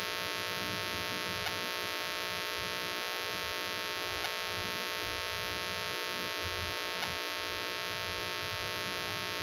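Steady electrical hum throughout, with a few faint ticks from a wooden spatula knocking and scraping against a nonstick frying pan as mawa is stirred.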